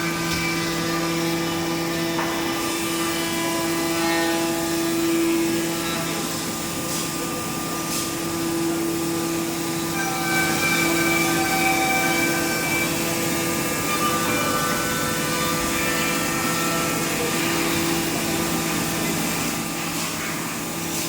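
CNC machine running with a steady motor hum. Several higher steady tones start and stop at different pitches throughout.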